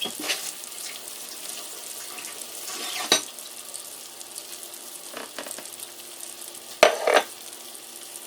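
Thick T-bone steaks searing in a hot pan: a steady high sizzle, broken by a few short sharp sounds about three seconds in and again, loudest, near seven seconds.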